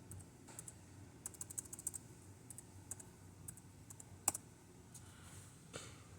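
Faint keystrokes on a computer keyboard as a login password is typed: a quick run of key presses about a second in, scattered single presses, and one louder key click a little after four seconds.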